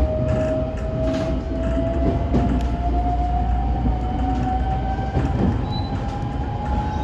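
JR West 125 series electric railcar running, its motor whine rising slowly and steadily in pitch as the train gains speed, over a continuous low rumble from the wheels on the track.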